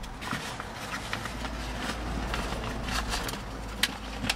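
Fabric rustling and small scattered clicks as hands work a fitted car seat cover and reach for its straps and buckles under the seat, over a low steady rumble.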